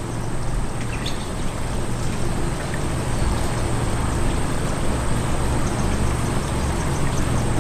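Steady outdoor background noise with a continuous low rumble and a constant high hiss, and a couple of faint short chirps about a second in.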